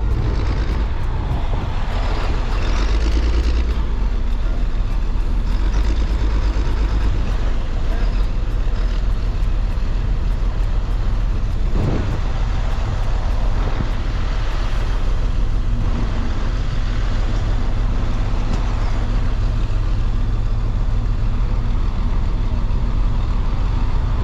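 Continuous loud noise of heavy road traffic with trucks among it, mixed with construction machinery working.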